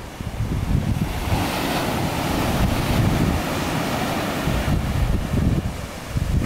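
Ocean surf breaking and washing against lava rock, with wind buffeting the microphone in low, gusty rumbles. A broader rushing wash of surf swells from about a second in and eases off past the middle.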